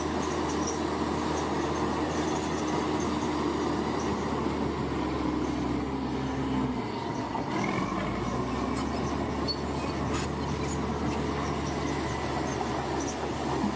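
Bulldozer's diesel engine running steadily, with its low rumble dipping briefly about seven seconds in.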